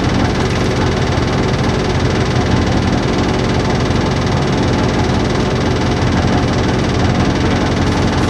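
Rally car's engine idling steadily with the car at a standstill, heard loud from inside the cabin.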